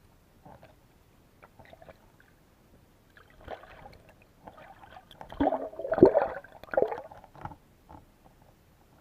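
Water sloshing and splashing, muffled as heard through an underwater camera, in a cluster of bursts that peaks about six seconds in, with a few small knocks before it.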